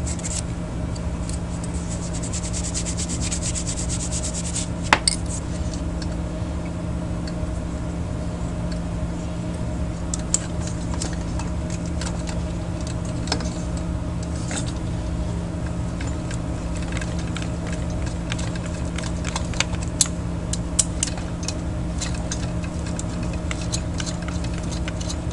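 Tissue rubbing against metal for the first few seconds as old heat sink compound is wiped off with alcohol, followed by scattered small metallic clicks and taps as the amplifier's transistors and heat sinks are handled. A steady low hum underlies it all.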